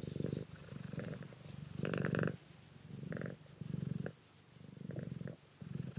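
Domestic cat purring, the purr swelling and easing with each breath about once a second.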